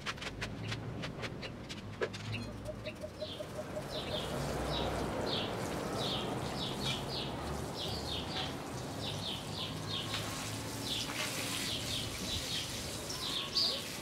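Fine spray of water pattering onto the granular soil of a freshly repotted bonsai, a steady hiss that builds about four seconds in. Birds chirp repeatedly over it.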